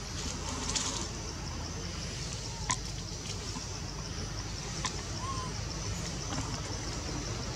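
Outdoor ambience under a tree: a steady low rumble with a faint, steady high drone, a few sharp clicks, and one short chirp about five seconds in.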